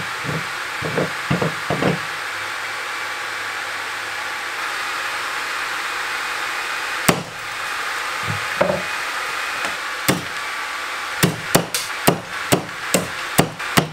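A hammer strikes Life Saver candies set on a bench vise. There are a few dull knocks in the first two seconds, a single sharp crack about seven seconds in, then a quick run of sharp hits near the end, about two a second. Under it all runs a steady whir from the cooling fan of the high-speed camera beside the vise.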